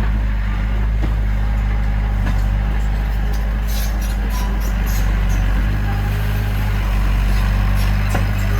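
Heavy diesel earthmoving machine engine running steadily with a deep, even drone, with a run of light metallic clicks and clanks about three and a half to five seconds in.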